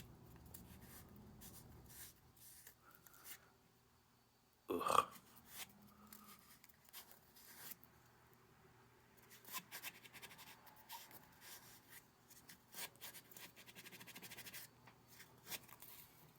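Faint scratching and rubbing of a giant cotton swab, with a short grunt about five seconds in.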